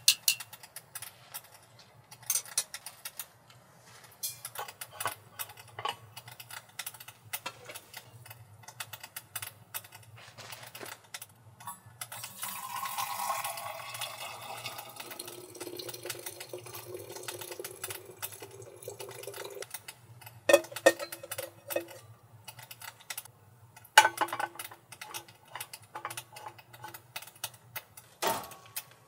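Water poured from a pot into a stainless insulated growler, running for about eight seconds in the middle. Scattered light clicks and clinks of metal cookware being handled surround it, with sharper knocks about two-thirds of the way in and near the end as the growler and its cap are handled.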